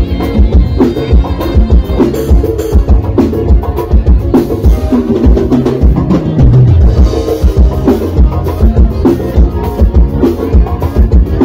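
Live band playing loudly through a PA: piano accordion over electric guitar, bass guitar and drums, with a steady, driving beat.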